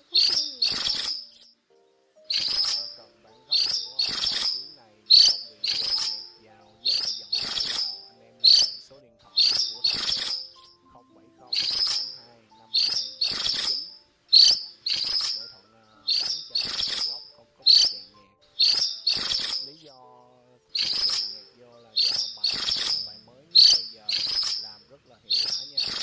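Minivet (phường chèo trắng lớn) giving its flock call: short, sharp, high call notes repeated about once a second, many in close pairs.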